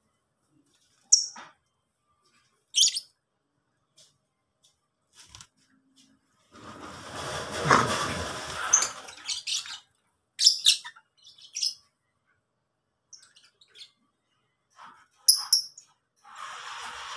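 Lovebirds giving short, shrill chirps, scattered every few seconds. A louder rushing noise swells and fades for about three seconds in the middle.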